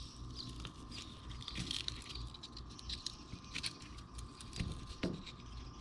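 Faint, irregular crackles and clicks of the hard plastic retainer around a Gates PowerGrip heat-shrink hose clamp being crushed by hand, and its cardboard insert slid out.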